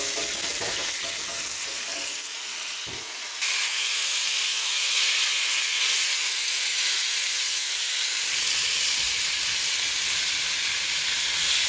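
Thin-sliced raw chicken sizzling in hot oil in a wok as it is stirred and spread with a spatula. The sizzle jumps suddenly louder about three and a half seconds in and then holds steady.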